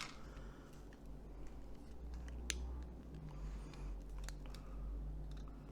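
A few faint, sharp clicks and small cracks of brittle plastic as a worn Nokia 2690's body shell is handled and prised apart.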